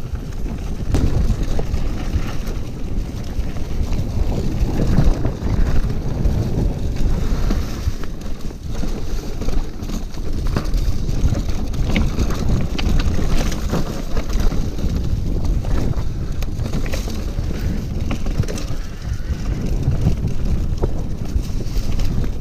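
Wind buffeting the microphone of a camera on a moving electric mountain bike, with knocks and rattles from the bike running over rough trail.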